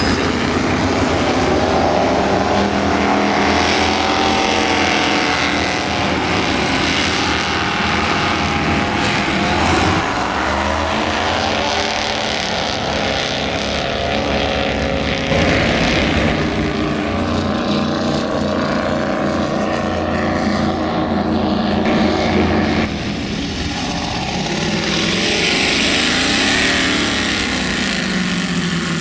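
Engines of several offshore racing powerboats running hard as the boats accelerate away, the engine notes gliding up and down in pitch as they pass.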